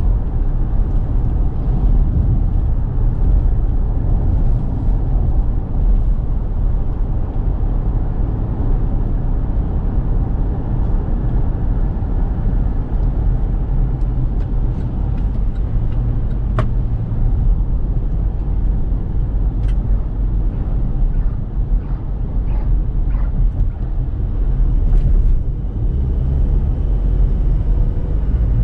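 Chevrolet Trailblazer's 2.8-litre four-cylinder turbo diesel and road noise as the SUV is driven: a steady low rumble with a couple of brief clicks.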